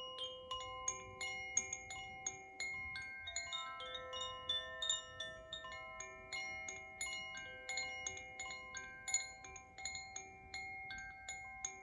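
Tuned metal instrument notes, struck or plucked several times a second, ringing long and overlapping into a shimmering wash of clear tones.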